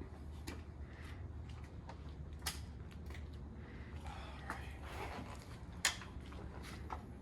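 Scattered light clicks and knocks of things being handled, the sharpest about two and a half and six seconds in, over a low steady hum.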